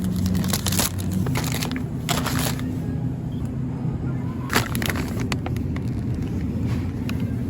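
Steady low hum of a running car engine, with several short bursts of crinkling and a few sharp clicks over it.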